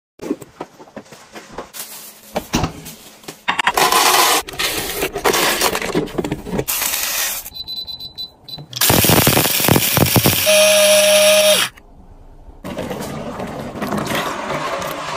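A run of short household handling sounds: clicks, rustles and knocks. About eight seconds in a food steamer's control panel beeps as its button is pressed, a steady tone follows shortly after, and near the end liquid is poured into a container of water.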